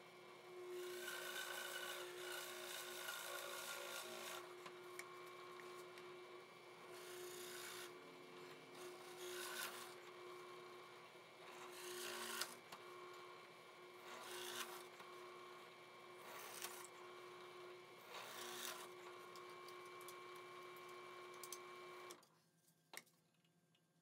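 Drill press motor running with a steady hum while a 1¾-inch Forstner bit bores into a wooden board. There is one long cut, then about six short plunges roughly two seconds apart. The bit is pretty well dull. The motor switches off about 22 seconds in, with a click just after.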